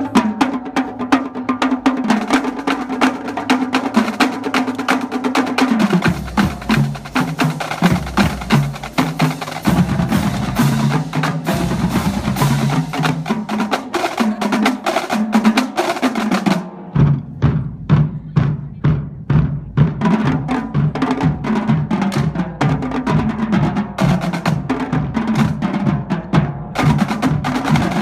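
Marching drum line playing a cadence: rapid snare drum patterns over pitched tenor and bass drums. About two-thirds of the way in, the playing thins for a few seconds to separate, evenly spaced strikes, then the full line comes back in.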